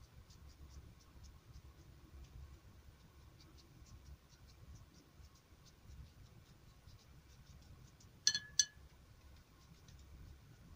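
Faint, quick ticking and patting of a filbert paintbrush dabbing watery acrylic paint onto printer paper. Two sharp clicks come about a third of a second apart near the end.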